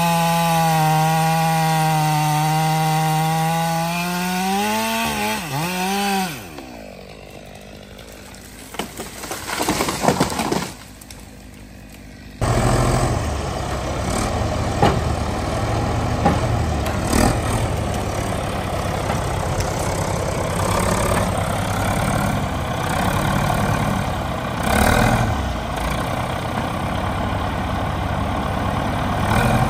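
A chainsaw runs at full throttle cutting into a tree trunk, its pitch wavering before it stops about six seconds in; a few seconds later come cracks and a crash as the tree goes over. From about twelve seconds in, a Caterpillar 518 skidder's diesel engine runs steadily with scattered knocks and rattles.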